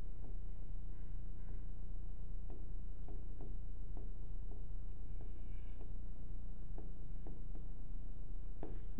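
Stylus writing on an interactive touchscreen display: faint short taps and strokes of the pen tip on the screen, over a steady low hum.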